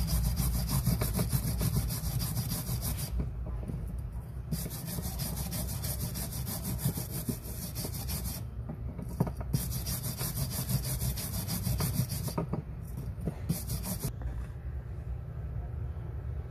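Brass wire brush scrubbing a metal coin in quick back-and-forth strokes, stopping briefly a few times, to clean off dirt and corrosion.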